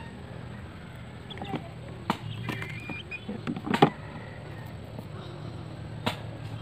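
Garlic cloves being peeled by hand on a cutting board: a quiet rustle of dry skin with a few sharp clicks, the loudest nearly four seconds in.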